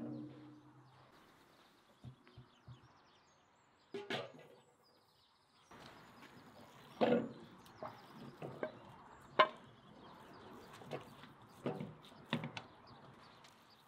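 A metal frying pan clunks onto the stove at the start. A few seconds later minced meat and onion are tipped into it and pushed around with a wooden spatula, giving a string of irregular knocks and scrapes against the pan.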